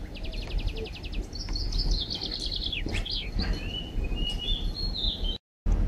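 Small birds singing: a fast trill of about a dozen notes in a second, then a falling warbled phrase and a few thinner high notes.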